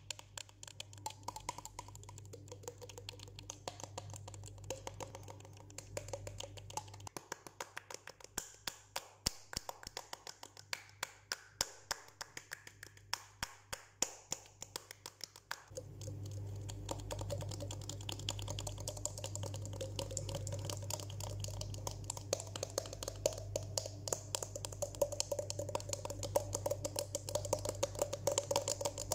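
Rapid, uneven clicking and tapping made with the fingers on the face, cheeks and open mouth, the body used as a percussion instrument. Under it runs a steady low hum that becomes louder about halfway through.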